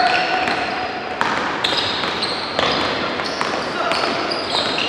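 Basketball game on an indoor court: a ball bouncing, sneakers squeaking in short high chirps, and voices of players and spectators calling out.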